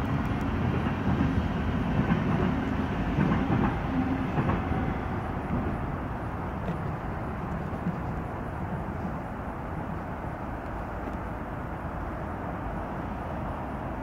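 Steady rumble of a rail vehicle close by, louder for the first five seconds or so, then settling to a lower, even level.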